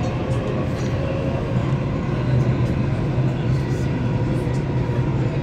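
Dubai Metro train running between stations, heard from inside the carriage: a steady rumble with a low hum.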